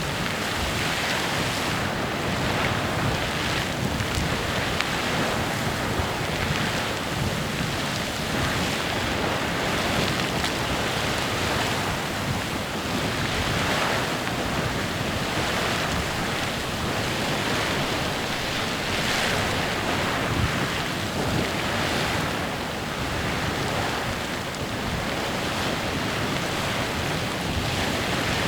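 Clepsydra Geyser in continuous eruption: a steady rushing hiss and splash of water and steam jetting and falling back, swelling slightly every few seconds.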